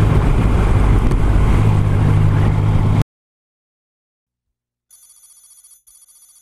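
Yamaha MT-09's three-cylinder engine running steadily, cut off abruptly about three seconds in. After a silence, a faint electronic ringing tone starts near the end, broken by a short pause.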